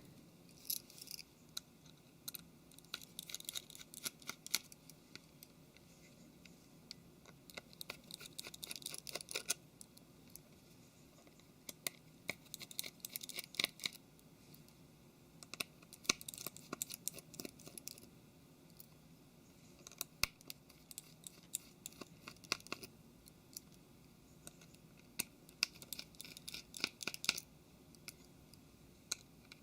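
Small Phillips screwdriver undoing the tiny screws of a Samsung Galaxy Note 3's rear cover: faint clusters of quick clicking and scratching, one every few seconds, with quiet between.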